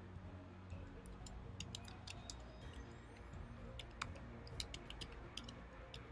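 Faint, irregular clicks of typing on a computer keyboard, in two short runs.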